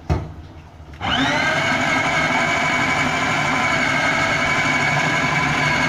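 A single knock, then about a second in a food processor's motor starts, quickly rises to speed and runs steadily with a high whine, mincing raw boneless chicken with onion, green chillies and spices into kofta mixture.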